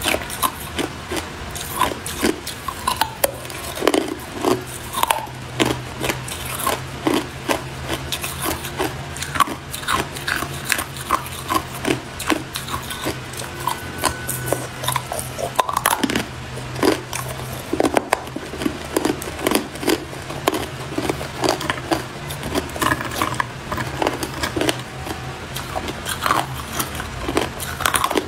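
Hard clear ice being bitten and crunched, a dense run of sharp cracks and crackles, with a low steady hum underneath.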